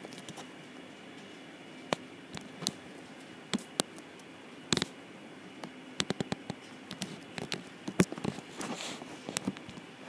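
A tabby cat nuzzling and rubbing against a phone: irregular close clicks, taps and rustles on the microphone, coming thicker in the second half.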